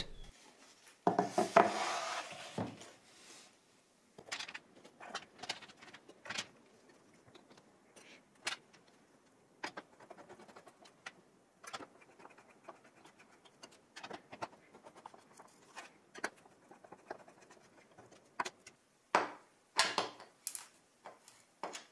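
Screws being driven into threaded inserts with a long driver tool, fastening a wooden wasteboard to a CNC router bed: scattered clicks and small scrapes of metal on metal and wood, after a short rustle near the start.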